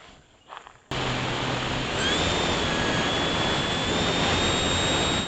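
RC bush plane's motor and propeller running at high throttle, heard from onboard: loud rushing air noise that cuts in abruptly about a second in, with a steady high whine joining a second later and stepping up slightly near the end.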